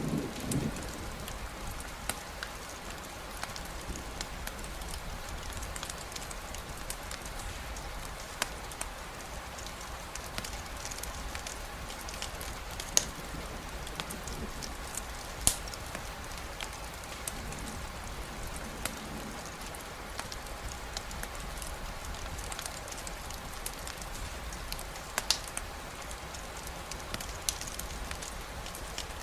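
Steady rainfall, an even hiss, with the scattered sharp pops and crackles of a campfire, a few louder ones standing out. A low thunder rumble dies away at the very start.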